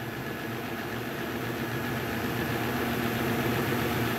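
HO-scale Athearn GP39-2 model locomotive straining against a pull meter with its DCC sound muted: its quiet motor running under load while the wheels grind on the rail, growing slowly louder.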